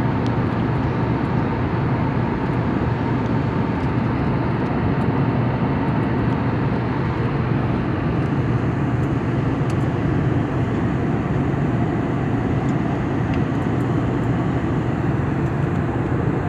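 Steady cabin noise of an airliner in cruise flight: a constant low drone that holds level throughout.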